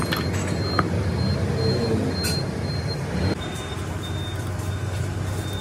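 A vehicle engine running steadily with a low hum, while a short high-pitched beep repeats about twice a second. A few light metal clicks come in the first half, from universal-joint parts being handled.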